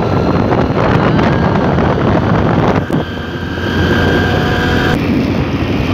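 Wind buffeting the microphone on a moving motorcycle, over the engine and road noise. The sound breaks off abruptly about three seconds in, then carries on with a faint steady whine.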